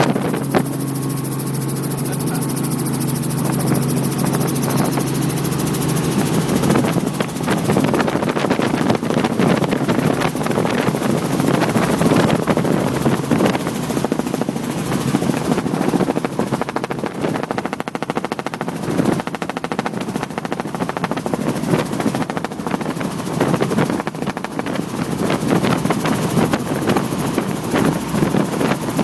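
A light helicopter's engine and rotor heard from inside the cabin during low flight. There is a steady drone with a hum for the first several seconds, then a rougher, choppier rotor noise.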